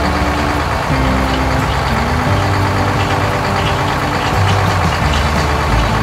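Engine sound effect of a combine harvester running steadily as it drives through the wheat, a continuous low rumble.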